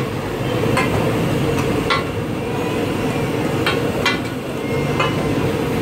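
Busy street-food stall: a steady low rumble of background noise with a handful of sharp, irregularly spaced metal clinks of utensils.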